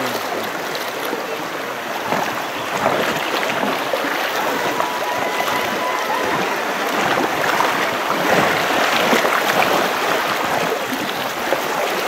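Shallow river water rushing steadily over stones around a bamboo raft as it is poled downstream.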